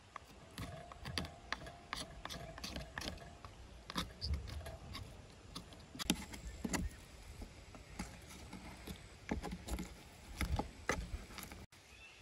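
Knife cutting and scraping meat off a sheep's jawbone over a wooden cutting board: irregular clicks and scrapes of the blade against bone, with a few dull knocks.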